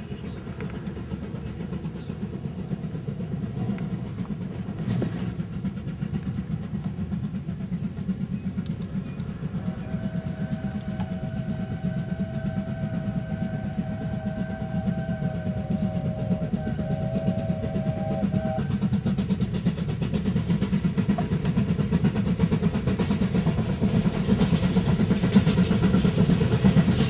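Steam locomotive hauling a long freight train, working under load with a steady exhaust beat that grows louder as it approaches. A long whistle note sounds for about eight seconds in the middle, breaking briefly near its end.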